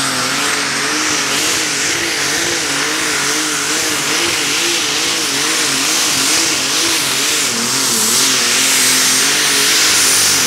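Modified pulling tractor's engine running hard under load as it drags the weight sled, its pitch wavering up and down a little faster than once a second, with a thin high whine above it.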